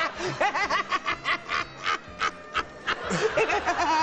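A man laughing in short, rapid bursts, several a second.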